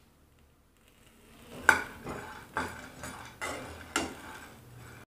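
A perforated steel spatula stirring peanuts roasting in a pan, scraping the pan and clattering through the nuts. There are about four strokes, starting about a second and a half in.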